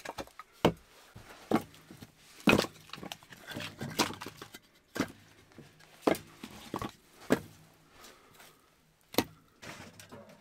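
Hatchet splitting firewood into kindling on a wooden chopping block, with split pieces knocking against each other: about nine sharp wooden knocks at uneven intervals, the loudest about two and a half seconds in.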